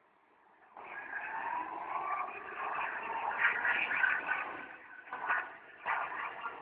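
Twin JetCat SPM-5 turbines of a radio-controlled Mhz Mystic C5000 powerboat running at speed: a loud rushing whine that comes in suddenly about a second in, its pitch slowly falling. A few sharp knocks come near the end.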